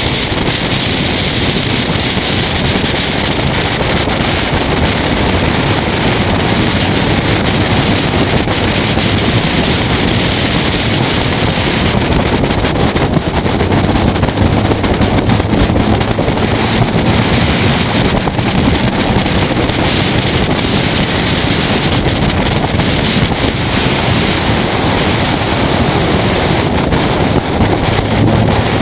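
Race car running at speed on a circuit, heard from a camera on its front bonnet: steady wind rushing over the microphone, with the engine running underneath.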